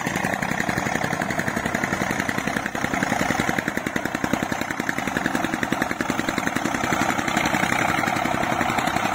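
Eicher 485 tractor's three-cylinder diesel engine running steadily under load, pulling a laser land leveller, with a fast, even chugging beat.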